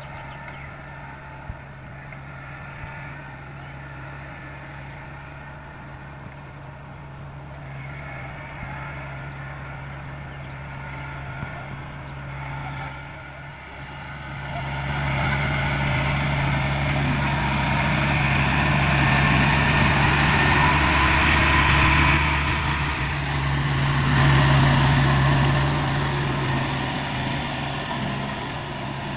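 Kubota DC-70 Plus combine harvester's diesel engine running steadily, growing louder about halfway through and easing off a little near the end.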